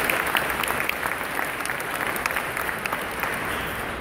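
Audience applauding with many hands clapping, easing off toward the end.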